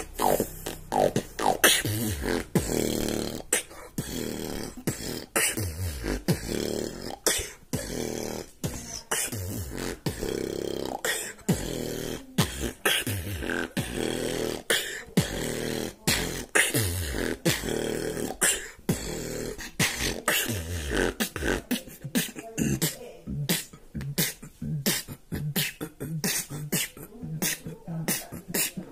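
Solo human beatboxing held close to a phone's microphone: sharp vocal kick and snare strokes with repeated falling bass-drop sweeps, the beat growing faster and denser after about twenty seconds.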